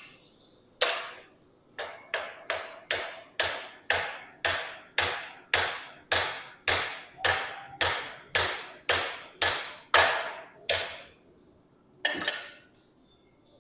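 Hand hammer striking the end of a 1/4-inch steel round bar held in a rivet header, upsetting it into a rivet head: one blow, then a steady run of metallic blows about two a second, and a last single blow near the end.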